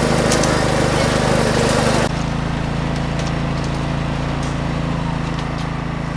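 A small engine running steadily with a continuous low hum, mixed with noise from the crowd. The hum shifts and the crowd noise drops at a cut about two seconds in.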